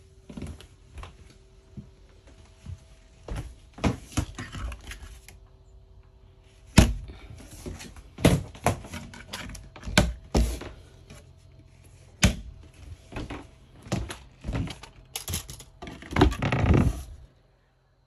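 Irregular knocks, clicks and thuds from someone moving about a travel trailer's interior and handling its fittings, with a longer scraping rustle near the end that stops sharply.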